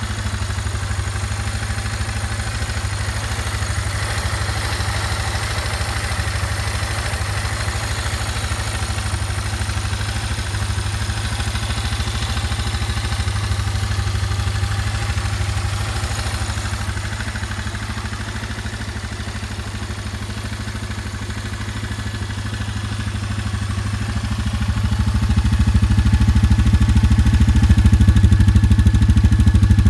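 GY6 150cc four-stroke single-cylinder engine on an ATV idling steadily. It gets louder near the end, heard close to the exhaust outlet.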